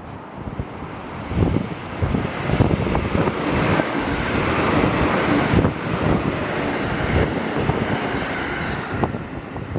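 A train passing on the line, its running noise building and then easing off, while strong wind buffets the microphone.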